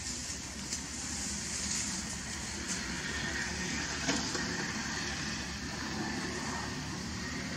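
Steady outdoor background noise: an even high hiss over a low rumble, with one faint click about four seconds in.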